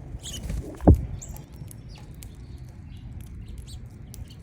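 Small songbirds chirping at a seed feeder in short, scattered high calls, with one dull thump about a second in.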